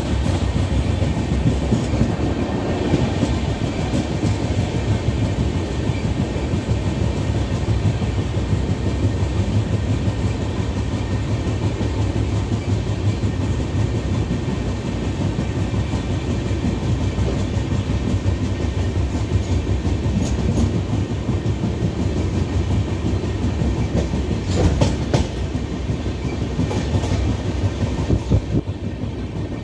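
Passenger train running along the track, heard from inside the coach: a steady rumble of wheels on rails with a clickety-clack of rail joints, and a cluster of sharper clacks near the end.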